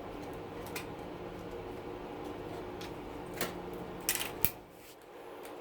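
Sharp plastic clicks and snaps as a dishwasher's circuit board is pried free of its plastic housing, with a loud cluster of clicks about four seconds in, over a steady low hum.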